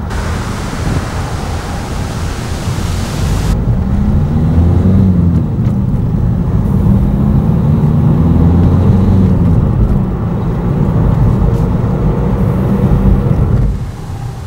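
Car on the move: engine note rising and then falling as it speeds up and slows, over road and wind noise. A hiss in the first few seconds stops abruptly, and the whole sound drops sharply near the end.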